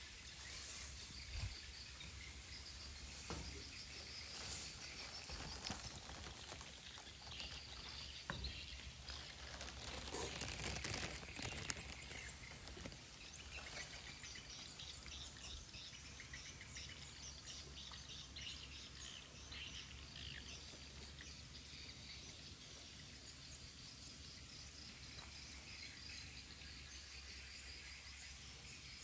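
Faint outdoor ambience of insects and birds chirping, with a stretch of rustling and a few clicks about ten to twelve seconds in.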